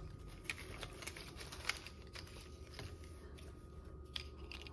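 Quiet rustling and small clicks of board-game tokens being handled as they come out of a cloth drawstring bag, with the sharpest clicks near the middle and near the end.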